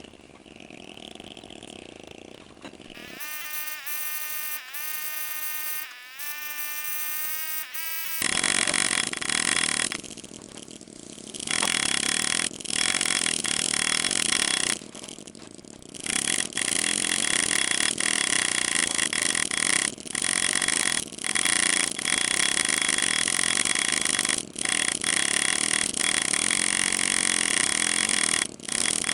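Power engraving tool buzzing in short runs against steel, its pitch rising and falling about 3 to 8 seconds in, then running louder and steadier with brief stops.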